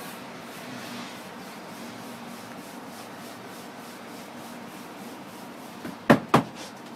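Hands pressing and stretching pizza dough across a stainless-steel counter: a steady rubbing with faint repeated strokes. Near the end come two sharp slaps about a quarter second apart.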